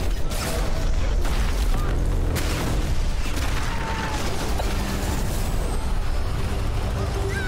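Film action-scene sound effects: a loud blast near the start and another about two and a half seconds in, over a heavy, continuous low rumble of explosion and debris.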